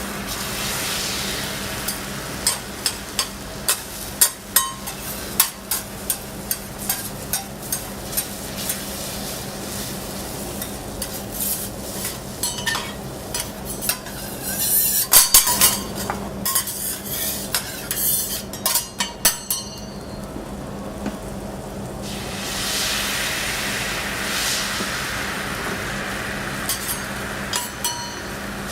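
Egg batter for a Japanese rolled omelette sizzling in a hot pan, with many sharp taps and clicks of a utensil against the pan as it is stirred and rolled, thickest in the middle stretch. The sizzle grows louder again near the end.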